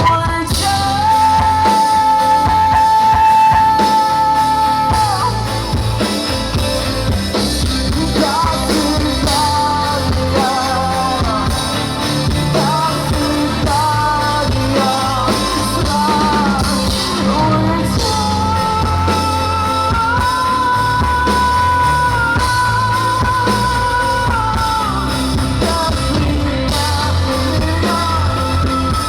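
Live rock band playing with a singer, who holds long sustained notes over guitar, bass and drums.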